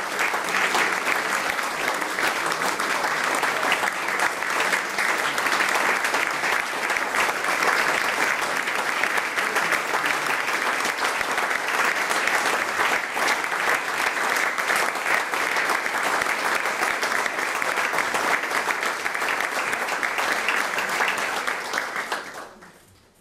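Audience applause, many people clapping in a steady, dense patter that fades out quickly near the end.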